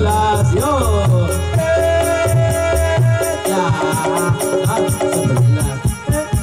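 Music: a melody with sliding notes over a low bass line, kept by a fast, even ticking beat.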